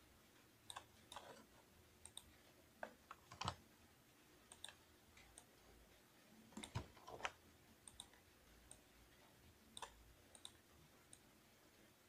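Faint, irregular clicks of a computer mouse and keyboard, some in quick pairs, with two louder knocks about three and a half and seven seconds in.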